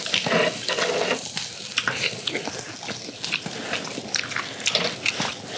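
Chicken heart skewers sizzling on a charcoal grill: a steady hiss scattered with many small sharp crackles and pops from the fat and coals.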